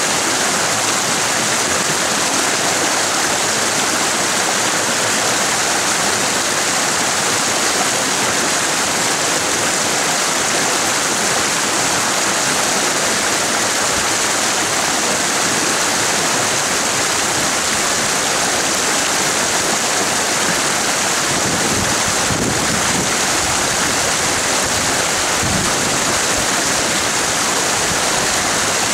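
A mountain creek rushing over rocks and small cascades, a steady, even noise of fast white water.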